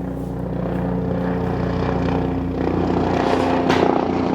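Steady drone of construction machinery next door, an engine holding an even pitch. It gets rougher about halfway through, with a short rushing noise near the end.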